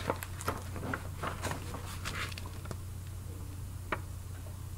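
Faint rustles and small ticks of a hardcover picture book's pages being flipped and handled, over a steady low hum.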